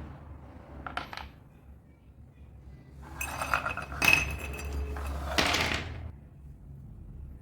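Hard objects clinking and rattling in handling: a short click about a second in, then a cluster of clinks from about three to six seconds in, with one sharp ringing strike in the middle, over a steady low hum.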